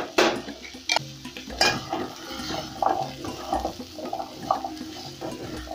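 Silicone spatula stirring and tossing cubed butternut squash frying in oil in a metal pot, with a few sharp knocks against the pot in the first two seconds, then irregular scraping and shuffling of the squash pieces.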